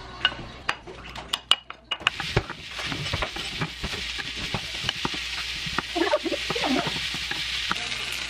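Diced ham, green onion and onion frying in a nonstick pan, stirred with a wooden spatula: a few sharp knocks and clatters in the first two seconds, then a steady sizzle from about two seconds in, with light scrapes and taps of the spatula.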